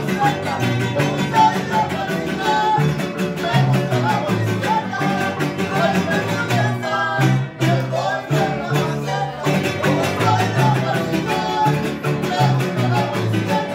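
Conjunto de arpa grande playing a son: the big harp plucking the bass line under strummed vihuela and guitar, with men's voices singing over them while the two violins rest.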